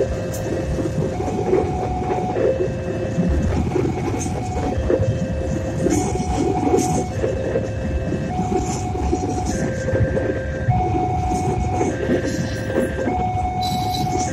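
Passenger train coaches running past over the rails, a continuous rumble with wheel clicks. Over it, the level-crossing warning alarm sounds two tones in turn, a lower and a higher one, switching a little more than once a second.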